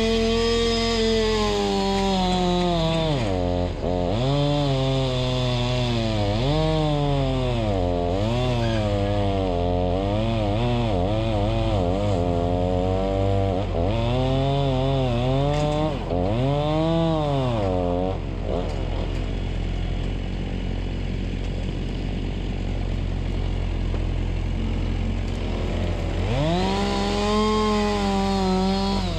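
Chainsaw running at high revs, its engine pitch dropping and recovering over and over as it is throttled and pulled down in cuts through firewood logs. About two-thirds of the way through the pitched engine note gives way to a plainer rushing sound for several seconds, then the saw comes back up to full revs near the end.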